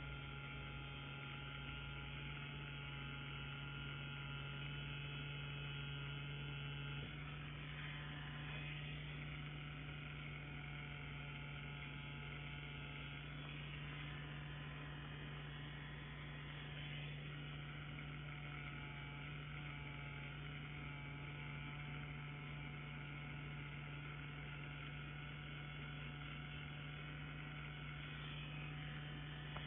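Wireless rotary tattoo pen (Solong CNC Q5) running steadily with a buzzing hum, its tone shifting slightly about seven seconds in.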